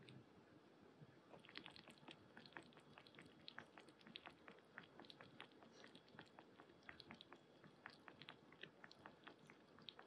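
Kitten lapping water from a bowl: faint, quick wet clicks, several a second, starting about a second in.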